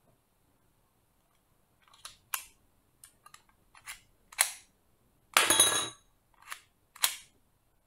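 Sharp plastic-and-metal clicks and snaps as an all-metal folding mini Desert Eagle toy pistol is unfolded and cocked, then a shot with a knock-down target clattering over about five seconds in, followed by two more clicks.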